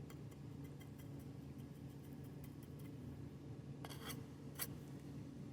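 Faint scraping and light ticking of a hand tool working fresh patching concrete on a slab corner, with two short, sharper scrapes about four seconds in.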